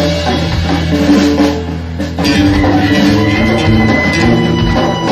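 Live rock band playing: an electric guitar picks out a melody of held notes over bass and drums.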